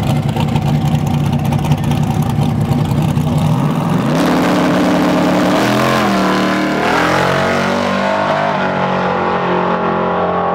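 Drag truck's engine at the starting line: a rough rumble, then the revs rise and hold. From about six seconds in it launches and pulls away hard, the pitch climbing and dropping back at each gear shift.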